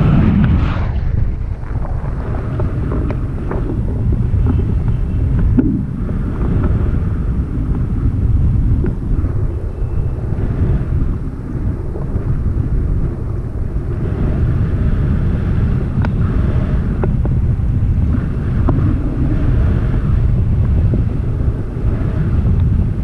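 Airflow buffeting the microphone of a pole-held camera during a tandem paraglider flight: a steady, loud low rumble of wind noise.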